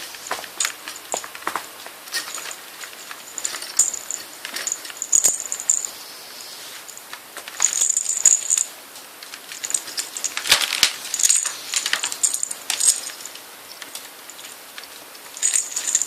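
Kittens at play: scattered light taps, clicks and scrabbling, with short bursts of a high jingle now and then.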